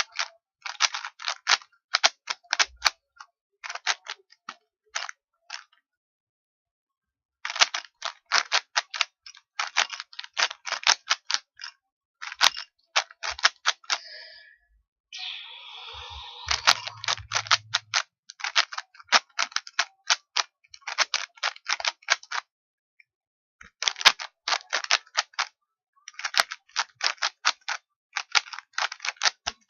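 Rubik's Cube being turned by hand: the plastic layers click and clack in quick runs of a second or two, broken by short pauses. A brief softer rustling comes about halfway through.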